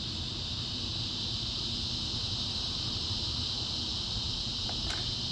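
Steady high-pitched hiss over a low background rumble, with one brief soft click near the end.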